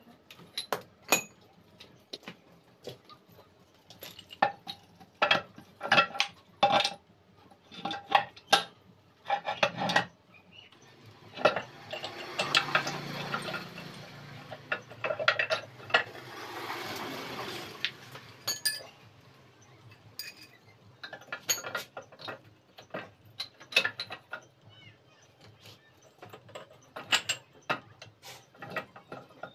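Steel gears and main shaft of a Tata 407 GB-20 gearbox clinking and clanking against each other and the cast gearbox casing as the shaft assembly is handled and set into the casing by hand. Sharp metallic knocks come at irregular intervals, with a few seconds of rougher, steadier noise around the middle.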